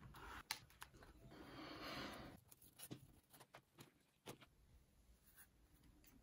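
Quiet handling of fabric rose petals on a cloth-covered pad and a towel: a soft rustle of fabric lasting about a second, about a second in, with scattered light clicks and taps.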